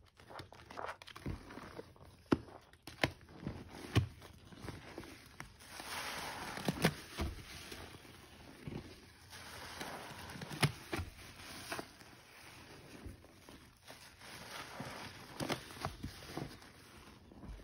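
Soapy, soaked sponges squeezed by hand over and over: irregular wet squelches and splats, with stretches of water pouring and running out between them.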